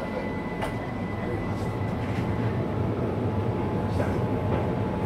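Keihan Keishin Line train heard from inside the front car as it pulls away: steady motor and running noise that builds a little as it gathers speed. A couple of short wheel clicks come as it crosses the points.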